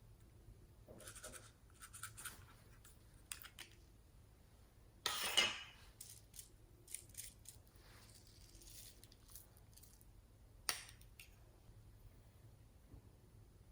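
Quiet handling noises of small objects: light scratches and taps, with a louder rasping scrape about five seconds in and a single sharp click near eleven seconds.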